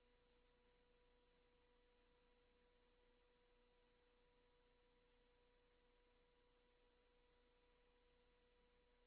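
Near silence: only faint steady electronic tones and a low hiss.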